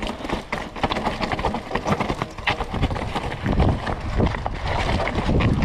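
Fantic electric mountain bike rolling down a rocky, technical trail: a dense, irregular run of knocks and clatters as the tyres hit stones and the bike rattles over them, over a low rumble that gets louder about halfway through.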